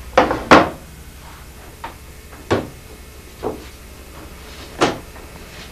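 About six sharp knocks and clunks at uneven intervals from wood and tools being handled, the loudest about half a second in.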